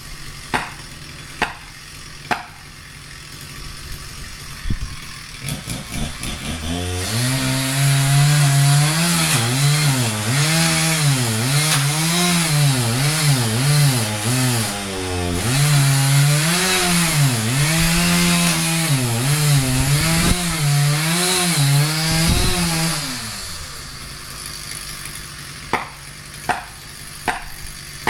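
Chainsaw running for about seventeen seconds, its pitch rising and falling as it is throttled while cutting wood. A few sharp knocks come in the first couple of seconds and again near the end.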